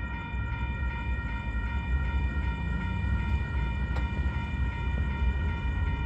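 Diesel-electric freight locomotive's deep engine rumble, building in loudness as the train approaches under power. A steady high-pitched whine sits over it without changing.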